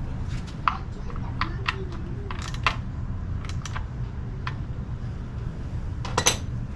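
Irregular small clicks and taps of hand tools and plastic engine parts being handled while the ignition coil goes back onto a Honda BF250D outboard's spark plug, over a steady low background hum. A louder double click comes near the end.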